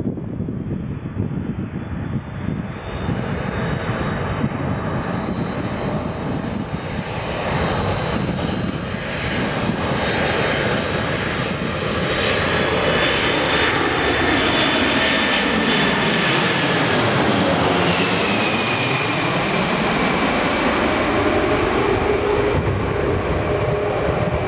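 Boeing 747-400 airliner on landing approach passing low overhead, the noise of its four jet engines growing louder. A high engine whine drops in pitch as it passes directly over, about 18 seconds in, with a brief sweeping whoosh, and it then goes on as a lower whine and rumble from behind.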